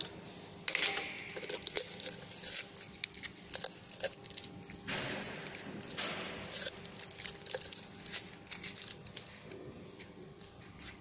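Aluminium foil covering a welded pipe end being torn and peeled off by hand, crinkling and crackling in bursts about a second in and again around five seconds in.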